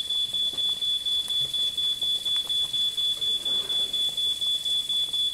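Smoke alarm sounding in rapid, regular high-pitched beeps, about four a second, set off by burned food.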